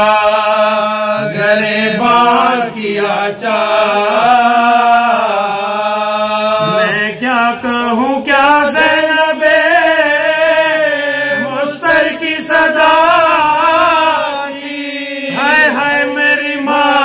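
Men's voices chanting a marsiya, an Urdu elegy, unaccompanied into a microphone: long, drawn-out wavering notes, with a second voice holding a steady low note under the melody at the start.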